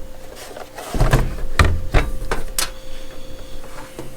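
Handling noise: a flurry of knocks, clicks and low thuds about a second in, as a digital scale and cordless impact wrenches are picked up and set down on a hard surface.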